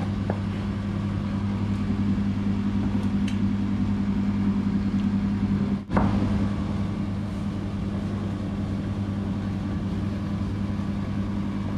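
Steady low machine hum in a kitchen, with a few faint knife taps on a plastic cutting board. The hum breaks off for an instant about halfway through.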